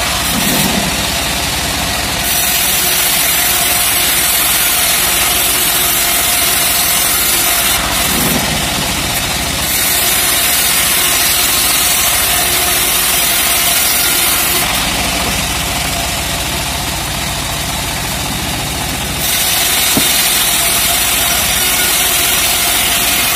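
Homemade vertical bandsaw mill running and ripping a teak slab lengthwise: a steady mechanical drone with the cutting noise on top. The noise dips for a few seconds past the middle, then picks up again.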